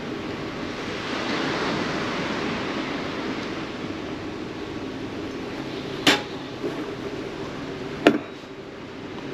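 Steady hiss of café background noise, with two sharp knocks about six and eight seconds in as things are set down on the stainless steel bench, the second louder.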